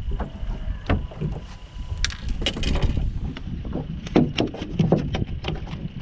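Wind on the microphone and water lapping against a small fishing boat's hull, with a string of sharp clicks and knocks, the loudest about four to five and a half seconds in.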